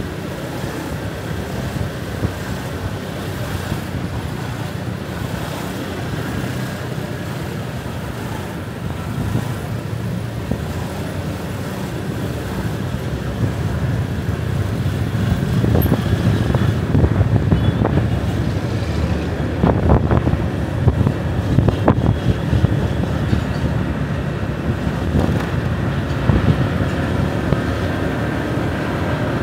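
Road and traffic noise heard while riding a motorbike through city streets: a steady rush of engines and tyres that grows louder about halfway through, with a few short knocks.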